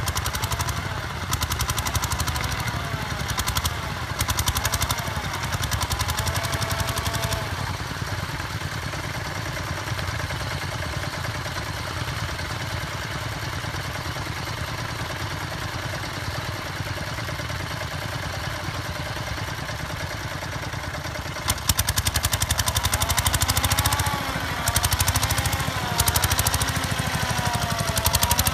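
Vintage tractor engine running steadily with an even beat of firing pulses. About three-quarters of the way through it suddenly becomes louder and harsher, as an engine comes close or is worked harder.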